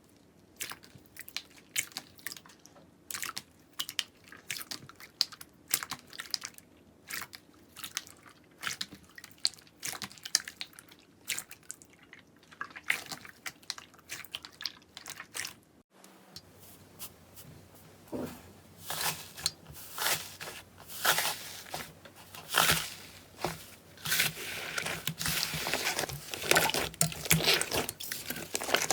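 Slime being squeezed and poked by hand: wet, sticky clicks and pops, spaced out at first. After a break about 16 s in, the popping and crackling becomes denser and louder.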